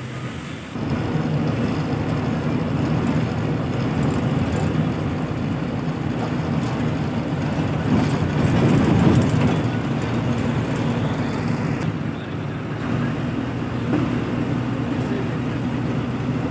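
Bus engine and road noise heard from inside the front of the cabin while the bus drives. The low engine drone steps up in loudness about a second in and swells around the middle.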